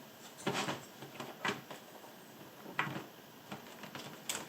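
LEGO bricks being handled and pressed together: several separate sharp plastic clicks and clatters.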